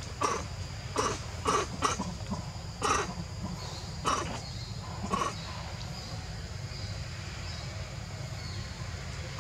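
A series of short, harsh animal calls, about seven in the first five seconds, then they stop.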